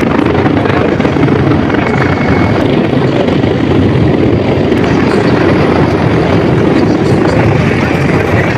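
Military aircraft flying low overhead: a loud, steady noise that holds without a break.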